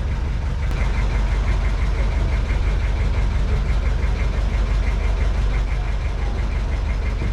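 Boat engine running steadily under a heavy low rumble, with a fast, even knock.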